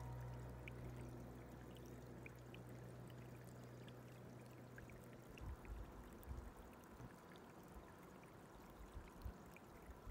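Faint trickling water with scattered light ticks, and a few low wind buffets on the microphone about halfway through and near the end.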